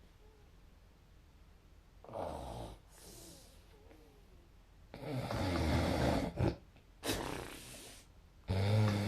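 A person snoring, with a fluttering, vibrating "buru-buru-buru" quality. Several snores come after about two seconds; the longest and loudest runs from about five to six and a half seconds in.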